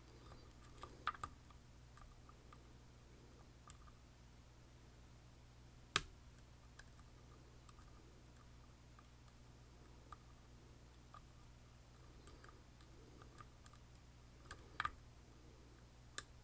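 Faint, scattered clicks and ticks of lock picks working inside an M&C Condor lock, with a sharper click about six seconds in and small clusters near the start and end. A low steady hum sits underneath.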